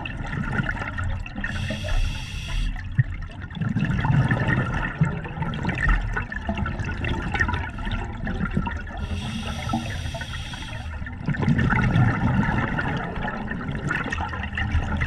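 Scuba diver breathing underwater through an open-circuit regulator: a hissing inhalation about two seconds in and again about nine seconds in, each followed by a rush of exhaled bubbles.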